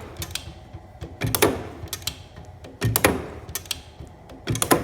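The turret of a Hardinge DSM-59 lathe indexing, with a loud metallic clunk about every second and a half, three times, and lighter clicks in between.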